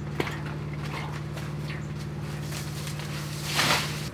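Steady low hum, with a brief splash near the end as water is tipped out of a large aluminium basin.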